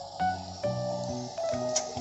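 Background music: a simple melody of short notes that change pitch several times a second over a steady lower line.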